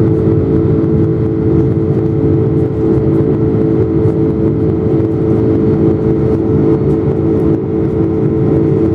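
Boeing 747 jet engines running steadily after takeoff: a loud, even drone of engine and air noise with a constant low hum on top.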